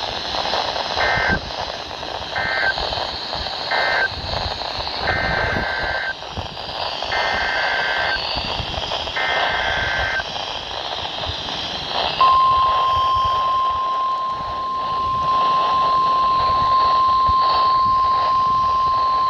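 NOAA Weather Radio Emergency Alert System data and alarm. First three short, raspy squawks of SAME digital code, the end-of-message signal. Then three longer squawks of SAME header code announcing the next alert. About twelve seconds in, the steady 1050 Hz weather radio warning tone starts and holds, over radio static.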